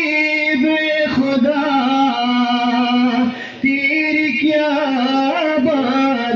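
A man's solo voice singing a manqabat, an Urdu devotional poem, unaccompanied. He holds long, wavering notes, with short breaks for breath about a second in and about halfway through.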